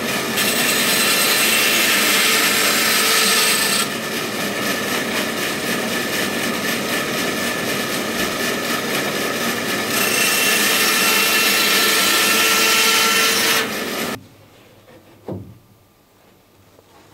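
Bandsaw running and trimming the ends off a mahogany seat slat: the cut gets louder and hissier twice as the blade goes through the wood, about a second in and again about ten seconds in, each pass lasting a few seconds. Near the end the saw noise stops abruptly, leaving a quiet room with a single knock.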